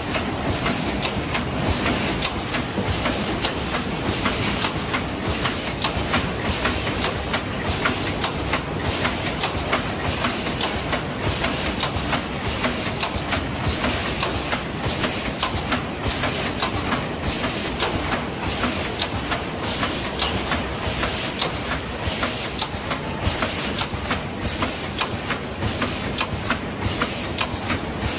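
Cornetto cone filling machine running: a steady mechanical clatter with a short puff of air hiss about once a second as the pneumatic dosing heads stroke, at about fifty strokes a minute.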